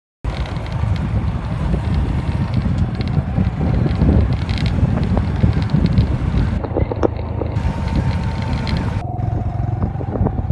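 A motor running under heavy wind buffeting on the microphone: a dense low rumble with a faint steady whine that drops a little in pitch near the end.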